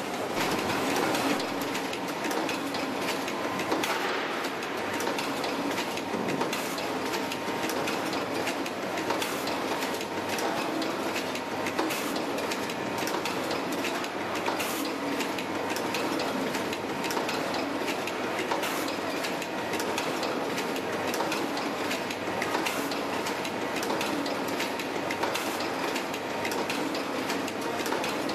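Boleto sea bream gutting machine running, a steady mechanical clatter with frequent clicks and knocks throughout.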